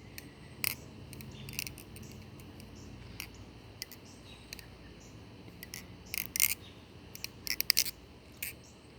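Balisong (butterfly knife) being flipped: its handles swing and clack against each other and the blade in irregular metallic clicks, a few scattered at first, then quick runs of clacks near the end.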